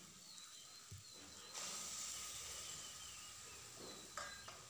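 Hot masala in a kadhai sizzling and hissing as soaked urad dal badi and their soaking water go into the pan. The hiss starts suddenly about a second and a half in and slowly dies down over the next couple of seconds.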